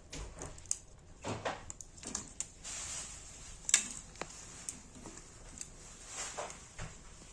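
Scattered light clicks and rustles in a small room, with one sharp click about three and a half seconds in.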